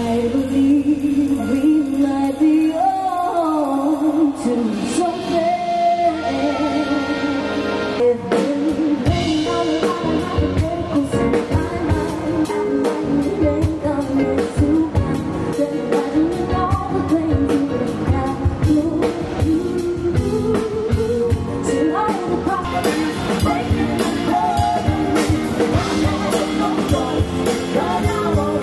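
A live rock band playing: electric guitar and electric bass over a drum kit keeping a steady beat, with a lead melody line on top.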